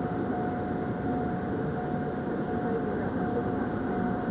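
Steady road and engine noise inside a Cadillac Seville's cabin while it is being driven, with a thin steady whine over it.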